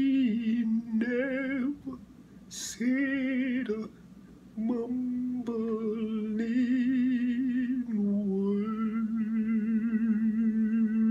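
A man singing solo without accompaniment, slow phrases of held notes with vibrato, ending on one long note held with vibrato from about eight seconds in.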